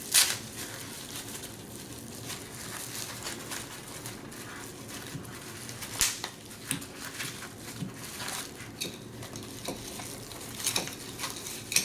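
Packaging being rummaged through and worked open by hand: continuous crinkling and rustling, with a few sharp clicks and taps of small items being handled.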